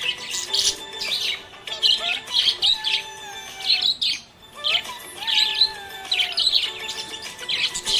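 Budgerigar chirping and warbling in quick, busy bursts of short calls, with a brief lull about four seconds in.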